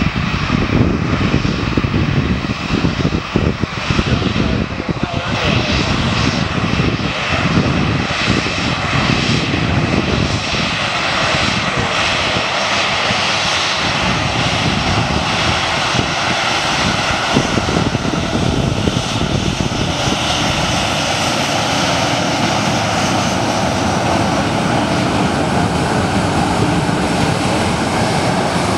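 Boeing 737-900's twin CFM56-7B turbofan jet engines at taxi power: a steady rushing hum with a high whine, the whine filling in over the second half as the airliner draws near.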